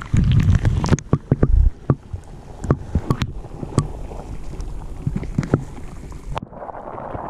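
Underwater sound picked up by an action camera in shallow sea water: a muffled rumble of moving water, heaviest in the first two seconds, with many sharp clicks and knocks scattered through it. Near the end it turns to a duller hiss.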